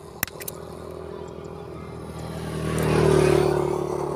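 Engine of a passing motor vehicle, growing louder to a peak about three seconds in and then fading. Two sharp clicks come just after the start.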